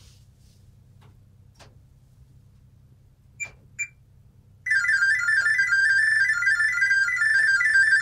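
LG WT7300CW washer's control panel gives two short beeps while the Temp button is held. About a second later it starts its Smart Diagnosis audible data signal: a loud, fast, warbling string of electronic tones that carries the machine's diagnostic data to the phone app.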